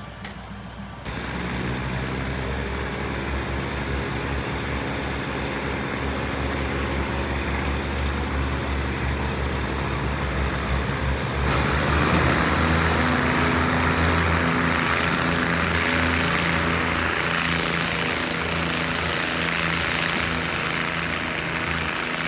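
Hitachi RHN diesel railcar under way, heard from on board: the engine runs with a steady drone over wheel and rail noise. About eleven seconds in it grows louder, with a stronger hiss.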